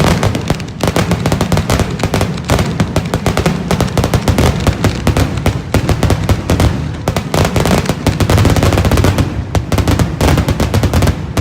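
Fireworks going off in a dense, rapid volley of sharp cracks and bangs, many a second and without a break.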